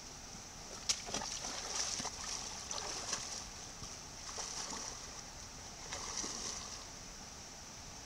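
Legs in waders sloshing and splashing through a shallow mountain stream in uneven spells of steps, over the steady rush of the flowing water. A single sharp knock about a second in.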